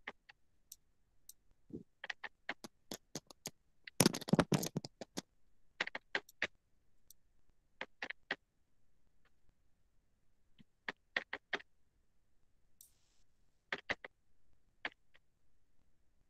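Quiet, scattered clicks of a computer mouse and keyboard, with a denser, louder run of clicks about four seconds in.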